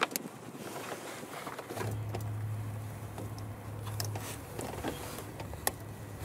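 Hands working wire connectors behind a car's front grille: small plastic clicks and rustling of cable and jacket sleeves, with a steady low hum swelling for a couple of seconds in the middle.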